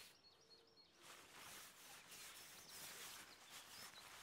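Near silence: faint outdoor ambience with a few faint, high bird chirps in the first second.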